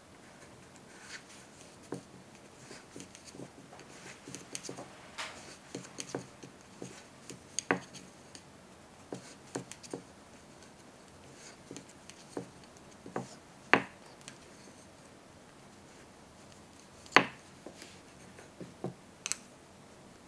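Wooden knitting needles clicking and tapping irregularly against each other as stitches are knitted in wool, with soft rubbing of the yarn; a few sharper clicks stand out, the loudest about 17 seconds in.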